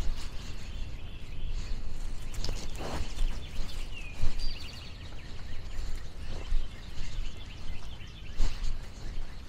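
Outdoor countryside ambience: a steady low rumble with scattered rustles and knocks, and a bird's short downward call and quick trill about four seconds in.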